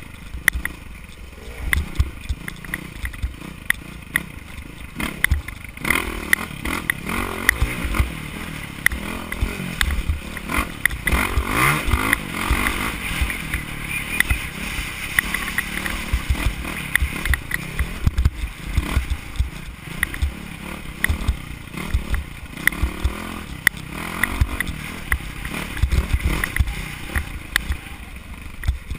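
Dirt bike engine running hard, revving up and down while the rider crosses rough desert ground, with frequent low thumps and knocks from the bumps, heard from a helmet-mounted camera.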